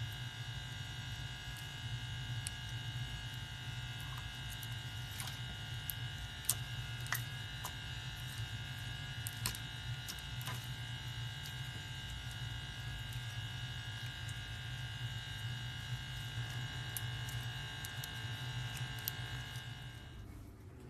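A small electric motor running at a steady buzzing hum, with faint clicks and taps over it. It switches off shortly before the end.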